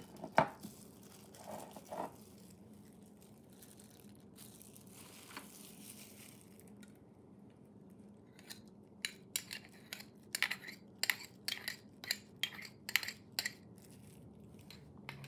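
A metal spoon scraping and clinking against a small ceramic bowl as thick yogurt is scooped out, with a quick run of sharp clicks in the second half.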